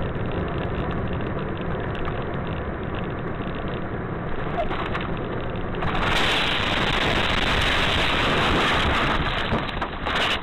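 Steady road and wind noise from a dashcam in a moving car. About six seconds in it changes to a louder, brighter hiss, which drops away near the end.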